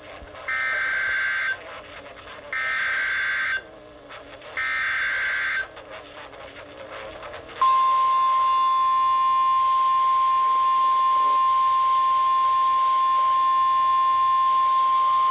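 NOAA Weather Radio Emergency Alert System broadcast: three harsh, warbling SAME header data bursts, each about a second long and a second apart. About two seconds later the steady single-pitch 1050 Hz warning alarm tone starts and holds, heralding a new tornado warning.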